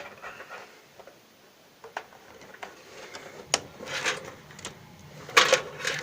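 Clicks and plastic knocks of a RAM stick being pushed and pressed into a motherboard memory slot, a few scattered taps at first and a busier cluster of knocks near the end, the loudest about five and a half seconds in. The stick is going in the wrong way round.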